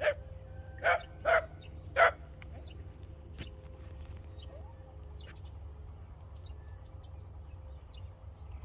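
A dog barks four times in the first two seconds or so, then stops. Small birds chirp now and then over a steady low hum.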